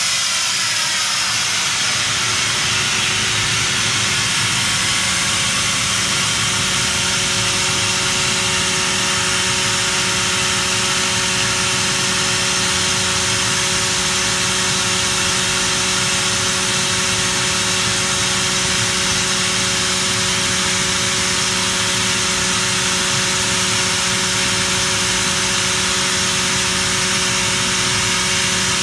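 Atlas Copco ZT37 oil-free rotary screw air compressor running steadily with its outlet at about 8.6 bar. It makes a loud, even hiss with a constant hum of several pitches.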